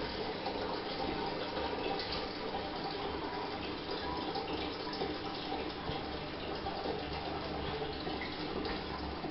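Toilet cistern refilling: a steady rush and hiss of water running in through its inlet valve.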